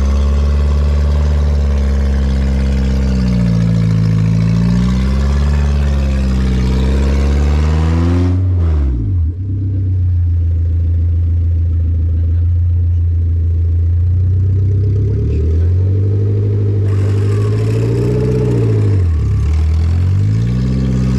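Off-road 4x4 engine revving under load as a vehicle bogged in mud is pulled out on a recovery line: the revs rise and fall, drop away sharply about nine seconds in, hold steady for a while, then swell and fall twice more near the end.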